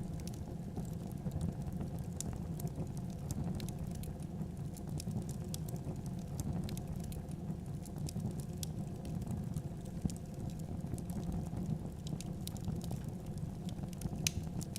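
Wood fire burning in a fireplace, with a steady low rumble of flames and irregular small crackles. There is one sharper pop near the end.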